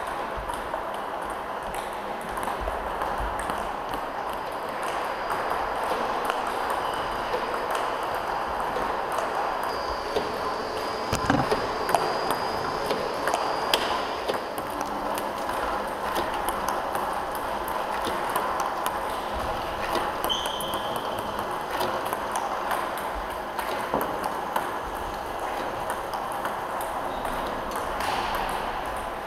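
Table tennis balls clicking in a quick, irregular patter: a Tibhar Robo Pro Junior ball robot feeding balls that bounce on the table and are struck back with a bat.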